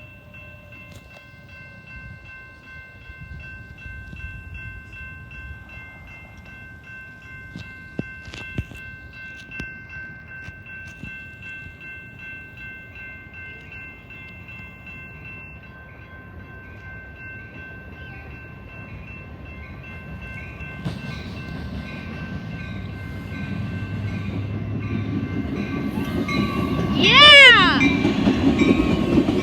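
Freight train approaching, its rumble growing louder over the last third, with a brief loud locomotive horn blast whose pitch bends as it passes near the end. Steady high ringing tones, like a grade-crossing bell, run through much of it.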